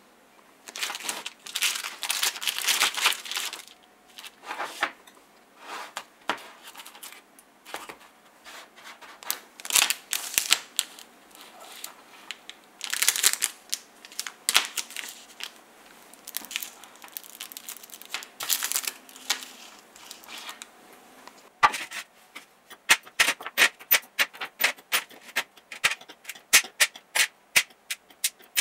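Small parts being handled on a workbench: thin plastic packaging crinkling and tearing in irregular bursts. About two-thirds of the way through, a long run of sharp metal clicks and clinks begins as small gears and shafts are set down in a metal tray.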